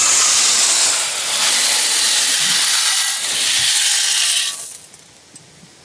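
A loud, steady hiss that starts suddenly and fades out after about four and a half seconds.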